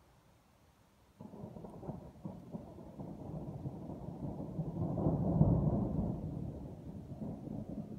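Thunder: a rumble that starts suddenly about a second in, builds to its loudest around the middle and slowly dies away.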